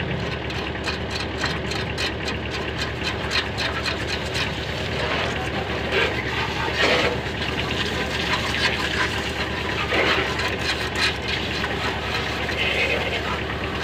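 An engine running steadily in the background, with clicks and scrapes of metal as a brake drum is worked onto an auto rickshaw's rear hub.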